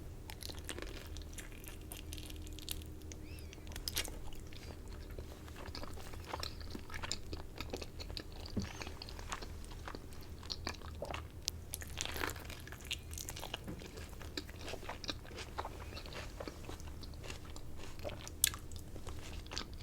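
Close-miked eating: a person chewing a crispy fried spring roll filled with Buldak noodles, with many small irregular crunches and wet chewing sounds. A steady low hum runs underneath.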